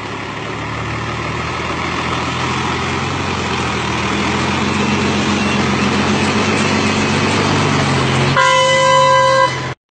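Diesel engine of a Ford Cargo truck hauling an excavator on a lowboy trailer, growing louder as the truck pulls past close by. Near the end a vehicle horn sounds one steady note for about a second.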